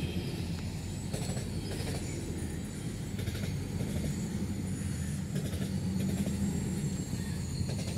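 Low flat wagons of a rolling-highway (Rola) freight train, loaded with lorries, rolling past. Their wheels on the rails make a steady low rumble with occasional faint clicks.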